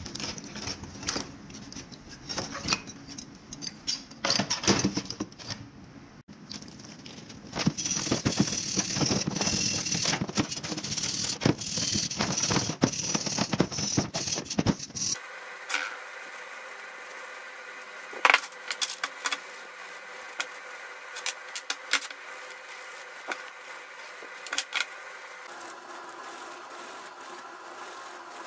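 Metal parts of a rusty manual meat grinder clinking and rattling as they are handled, with a dense stretch of scraping in the middle. About halfway through the sound changes abruptly to sparse light clicks over a faint steady tone.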